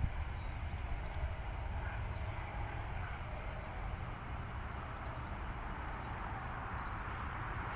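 Freight train wagons rolling past with a steady low rumble.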